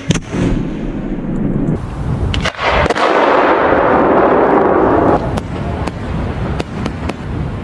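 Fireworks going off: sharp bangs, a loud rushing hiss lasting about two seconds, then a run of scattered sharp cracks.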